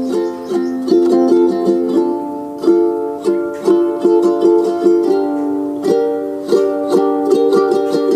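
Music: a melody of plucked string notes, each struck sharply and left to ring out, several notes a second.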